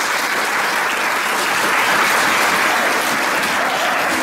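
Audience of schoolchildren and visitors applauding, many hands clapping at a steady level.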